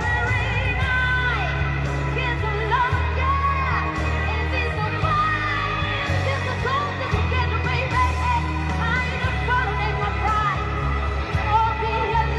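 A high voice singing a pop song with vibrato and sliding runs, over a backing track with a heavy bass line.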